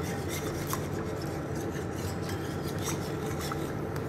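Wire whisk scraping and clicking irregularly against a metal saucepan as milk is whisked into a butter-and-flour roux, over a steady low hum.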